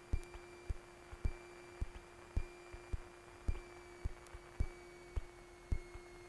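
Quiet cockpit audio feed between radio calls: a steady low hum and a faint high whine that slowly drops in pitch, with soft, evenly spaced low thumps a little under twice a second.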